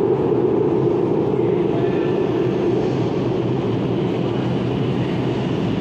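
CAF 8000-series Madrid Metro train approaching through the tunnel into an underground station, a steady rumbling run of wheels and motors that echoes off the station walls.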